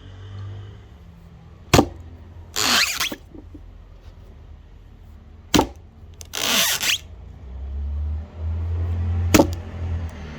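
Axe chopping wood: three sharp strikes about four seconds apart, each of the first two followed by a short rushing, splintering noise.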